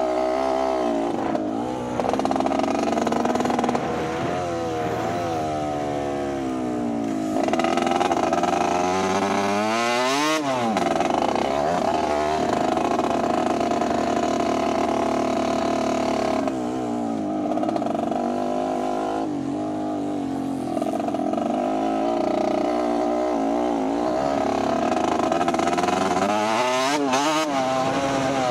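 Motocross bikes' engines revving up and down on the track, more than one at once, their pitch rising and falling throughout with sharp sweeps about ten seconds in and again near the end.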